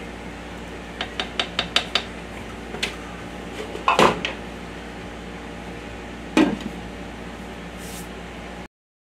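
A serving spoon taps about six times in quick succession on the rim of a ceramic slow-cooker crock. Then come a loud clatter and, a couple of seconds later, another clank as the glass lid is set on the pot, over a steady low hum. The sound cuts off abruptly near the end.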